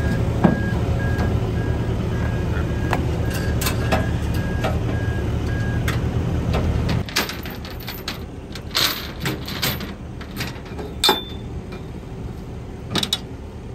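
An engine running steadily with a backup alarm beeping in an even on-off rhythm; the engine stops abruptly about seven seconds in. After that come scattered clanks and rattles of chains and metal as tractors are chained down to a trailer deck.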